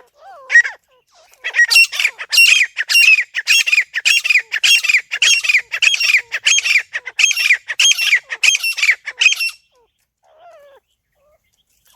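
Grey francolin (teetar) calling: one short call, then from about a second and a half in a long run of sharp, evenly spaced calls, about two a second, that stops a couple of seconds before the end.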